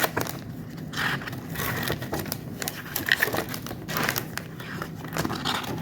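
Crinkling and rustling of paper and plastic being handled, a busy run of small irregular rustles and clicks.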